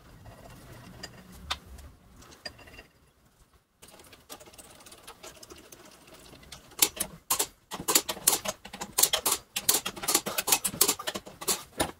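Faint metal handling as the ring gear bolts are started. From about seven seconds in, a ratchet-head torque wrench clicks rapidly and irregularly, in short runs, as it is worked back and forth to run the bolts down on the differential centre.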